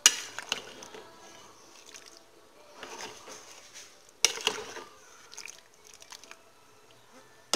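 Metal spoon stirring black beans and sausage in a pressure cooker pot, with a sharp clack of the spoon against the pot at the start and another about four seconds in, and soft liquid stirring between.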